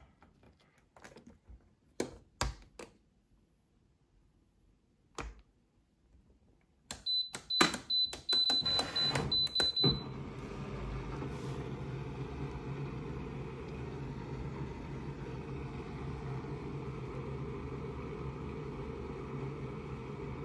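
AEG Lavamat 72850M front-loading washing machine being set for a spin: a handful of separate clicks from the controls, then a quick run of short high beeps mixed with clicks from the control panel. About halfway through the machine starts running with a steady low hum.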